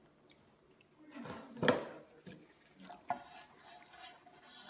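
The removable non-stick pan of a T-fal ActiFry air fryer being handled, its metal bowl and clip-on handle knocking and clattering. There is one louder knock about two seconds in and a sharp click about three seconds in.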